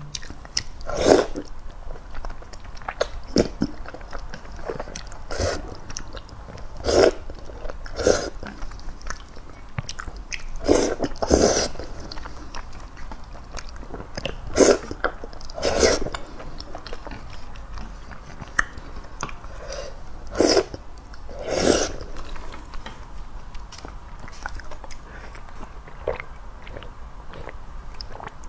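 Close-miked eating of wide noodles in a spicy broth: wet chewing and slurping sounds, irregular and a second or two apart, with a few louder ones scattered through.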